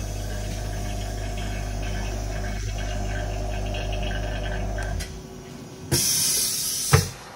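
Vacuum pump of a screen-laminating machine running with a steady hum and cutting off about five seconds in, as its timed vacuum stage ends. About a second later a loud hiss of air lasts about a second and ends in a click.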